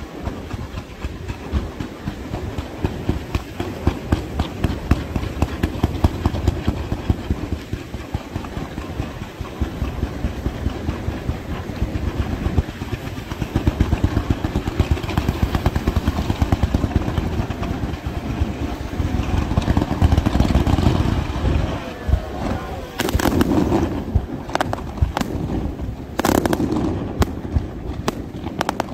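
Aerial fireworks display: a dense, continuous run of shell bursts booming and rumbling, with sharp cracks and crackle coming thick in the last several seconds.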